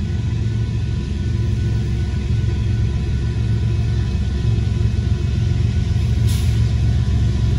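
Steady low vehicle rumble heard from inside a car cabin at a railroad crossing, with one sharp click about six seconds in.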